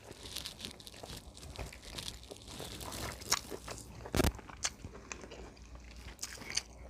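A person chewing and biting neck bone meat close to the microphone, with small wet clicks and crunches. There is one louder sharp crunch or knock about four seconds in.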